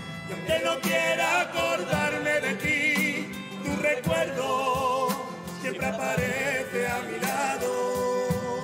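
Carnival murga chorus singing held, wavering notes in harmony, over a steady drum beat and guitar.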